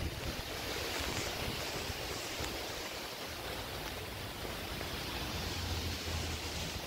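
Steady outdoor background hiss with no single event standing out, the kind of wash made by wind through trees and distant city noise. A faint low hum comes in briefly near the end.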